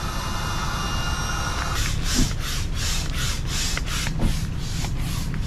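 Hand barrel pump inflating an Intex Seahawk 3 inflatable boat: quick strokes, each pushing a gust of hissing air, about three a second from about two seconds in. Before that, a steady hum with thin high whining tones.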